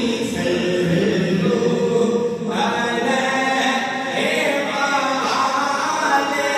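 A man singing a Punjabi naat into a microphone, in a devotional melody with long held, ornamented notes.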